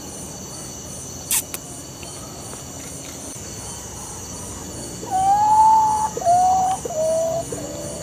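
Potoo singing a falling series of whistled notes about five seconds in: one long note, then three shorter ones, each a little lower. A single sharp click about a second in, and insects trilling steadily behind.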